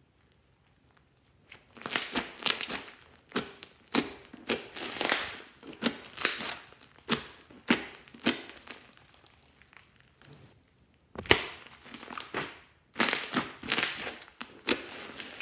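Hands kneading, pressing and stretching a large lump of thick green slime dotted with small beads, making irregular squishing noises. These start after a quiet first second or so and pause briefly about two-thirds of the way through.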